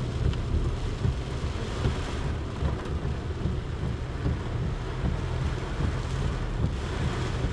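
Heavy rain and a car driving through a flooded street, heard from inside the car: a steady low rumble with the hiss of rain and water spray against the windscreen.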